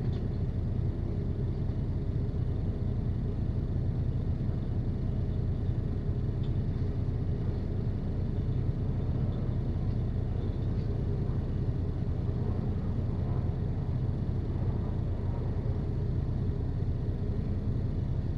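Steady low rumble of an idling vehicle engine, unchanging throughout.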